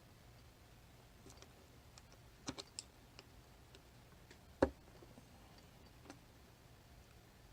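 Small metal clicks and taps from handling a tubular lock and its tools during disassembly: a quick run of ticks about two and a half seconds in, and one louder knock a little past the middle.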